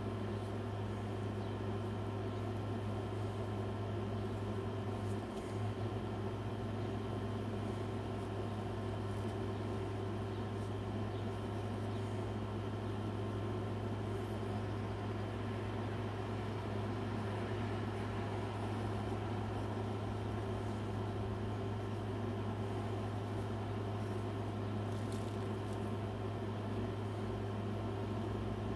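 Steady low mechanical hum with several fixed tones, like a motor or appliance running.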